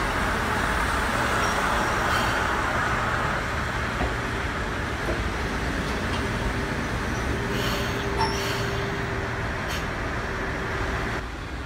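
Diesel railcar train moving slowly along a station platform, its engines giving a steady low rumble; a steady hum joins in about seven seconds in.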